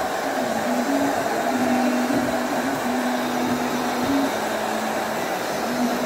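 Handheld hair dryer blowing steadily on hair: a continuous rush of air over a motor hum that wavers slightly in pitch.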